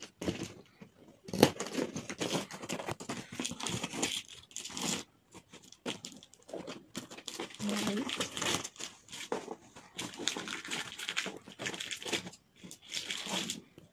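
Scissors cutting through plastic packing tape along the seam of a cardboard carton, with the tape tearing and the cardboard crinkling in a rapid, irregular run of scratchy rustles.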